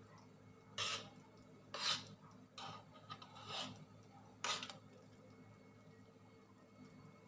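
A metal spoon scraping across the bottom of a large aluminium wok while stirring coconut milk being cooked down for coconut oil: five short rasping strokes in the first five seconds, then only a low steady hum.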